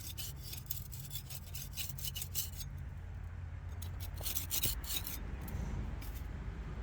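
Dirt being scraped off a metal cover plate in rapid short scratchy strokes, thick for the first two and a half seconds, then a few more strokes near the middle, over a steady low hum.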